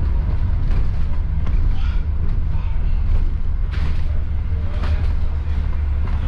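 Steady low engine and road rumble of a moving bus, heard from on board, with a few short rattles about four and five seconds in.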